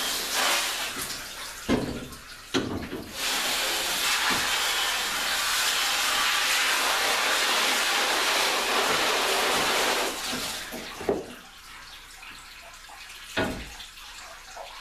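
Water sprayed from a hose onto a screen-printing screen's mesh, washing out the emulsion to reclaim it; the spray runs steadily and stops about ten seconds in. A few sharp knocks come from the screen's frame being handled, one near the end as it is lifted out.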